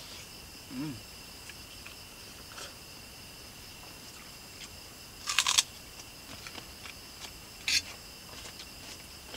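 Crickets chirring steadily at two high pitches, with short clinks and clatters of a spoon on a plate while eating. The loudest clatter comes about five seconds in and a smaller one near eight seconds, with a brief 'mm' from the eater about a second in.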